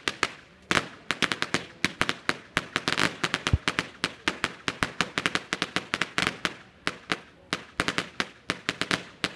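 A string of firecrackers going off on the ground: sharp bangs in quick irregular clusters, several a second.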